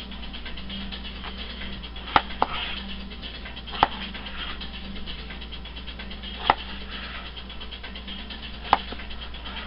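Kitchen knife slicing red potatoes on a plastic cutting board: five sharp knocks of the blade on the board, irregularly spaced a second or more apart, over a steady low hum.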